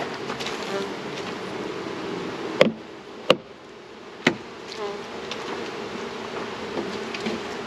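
Honey bees buzzing in large numbers around an opened hive, a steady hum. About two and a half to four seconds in come three sharp knocks, the loudest sounds.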